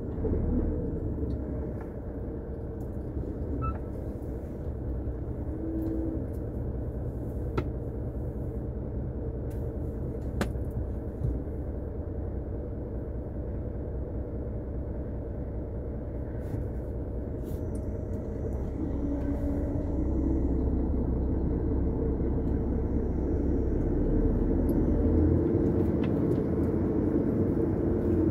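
Semi truck's diesel engine running at low speed, heard from the cab as a steady low rumble. It grows louder about two-thirds of the way through as the truck pulls forward in the queue.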